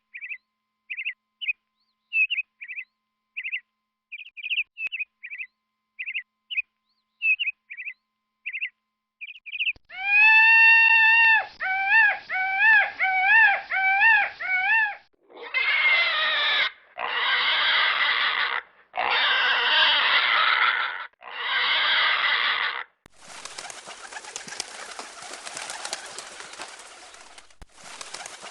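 A run of peacock calls: a string of short, high chirps for about ten seconds, then several seconds of loud, ringing calls that rise and fall in pitch, then four harsh screams of about a second and a half each. From about twenty-three seconds in, a steady hiss-like rustle takes over.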